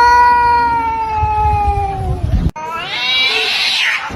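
A cat yowling: one long drawn-out call, slowly falling in pitch, cut off abruptly, then a second, shorter and harsher yowl.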